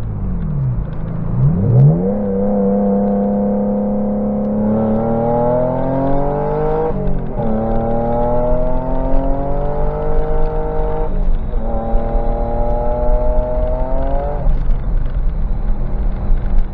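Turbocharged Porsche Boxster 986 flat-six accelerating hard, heard from the open cockpit: after two quick dips near the start, the engine pitch climbs in three long rising pulls, each cut off by a gear change. Under boost the revs rise with the clutch slipping.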